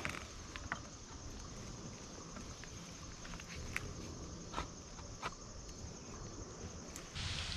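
Insects chirring steadily, with a few sharp clicks and knocks of a metal climbing stick and its rope being fastened to a tree trunk. Near the end a louder hiss comes in.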